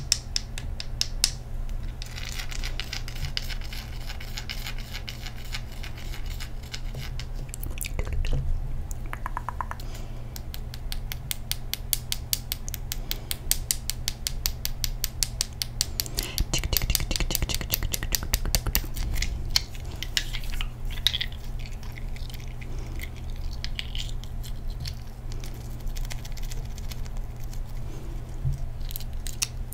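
Rapid fingernail tapping and scratching on ice cubes close to the microphone, a quick run of crisp clicks, over a steady low hum.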